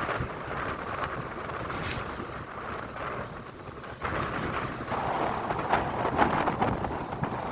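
Ocean waves washing onto the shore: a steady rush of surf that swells again about four seconds in.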